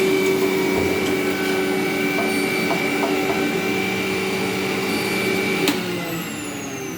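Bajaj juicer grinder's electric motor running steadily at speed while juicing an apple slice. Near the end it is switched off with a click and its whine falls away as it spins down.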